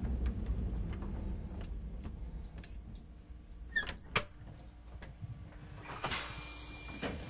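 Choshi Electric Railway train car rolling to a stop, its low rumble fading, with two sharp clicks about four seconds in. A hiss of air starts about a second before the end.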